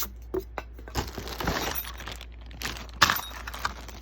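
Plastic packaging rustling and crinkling while packets of clips and screws are handled, with scattered clicks and one sharp click about three seconds in.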